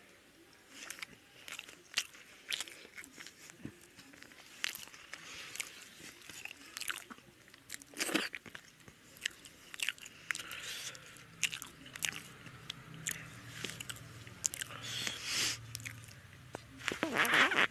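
A person chewing and biting food, with many irregular sharp crunches and a louder burst near the end.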